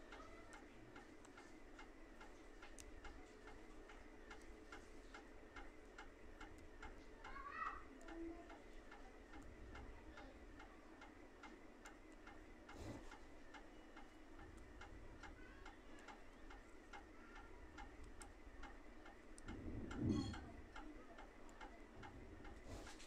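Faint, even clock ticking, with a soft low bump a few seconds before the end.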